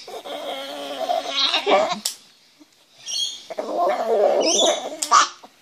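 Small dog squealing in protest at having her nails clipped, a dramatic carry-on rather than a sign of pain: two long, wavering squeals of about two seconds each, each ending in a sharp click.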